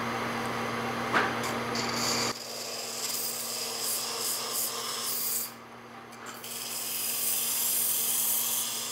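A curved, sandpaper-lined block and chalk rubbed against a wooden sphere spinning on a wood lathe, a hissing rub that marks the sphere's high points. The rubbing starts about two seconds in, breaks off briefly past the middle and builds again near the end, after a light knock about a second in.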